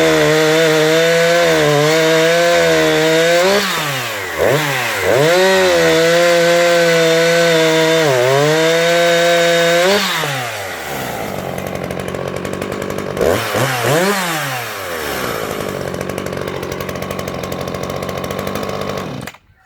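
Husqvarna 357 XP two-stroke chainsaw revved high and steady, with the throttle let off and opened again twice, then dropping to idle about halfway through. It is blipped once more and then cuts off suddenly near the end.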